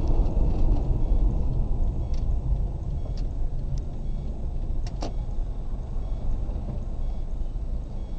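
Car engine and road rumble heard from inside the cabin through a dash cam: a steady low rumble, with a few faint clicks about two to five seconds in and a thin steady high whine.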